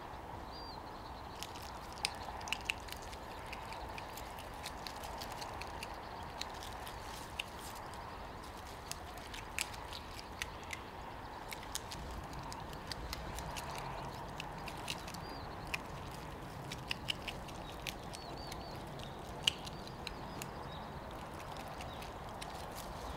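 Eurasian otter eating a catfish in a rocky stream: scattered sharp wet clicks of chewing and splashing over the steady rush of running water, with a few faint high chirps.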